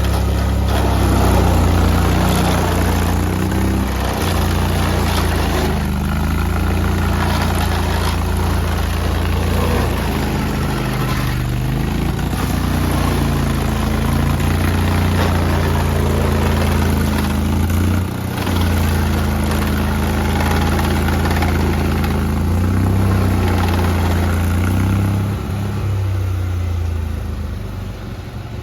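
Heavy machine's diesel engine running under changing load, its note rising and falling, with scattered knocks and clatter over it. The engine briefly drops about two-thirds of the way through and eases off near the end.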